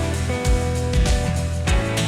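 Background music with a steady beat: sustained instrument notes, with a guitar-like plucked sound, over a low drum hit about twice a second.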